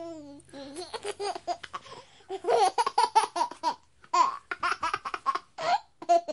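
High-pitched human laughter, likely a young child's, in several quick runs of giggling pulses with short breaks between them.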